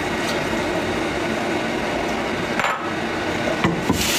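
Kitchenware being handled: a knock a little after two and a half seconds, then a couple of louder knocks near the end as a bowl is set down on the counter, all over a steady hiss.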